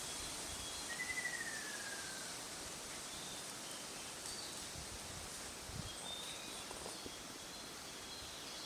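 Ruddy kingfisher giving a single descending trilled call about a second in, over a steady hiss of outdoor ambience. Faint short high-pitched calls sound on and off in the background.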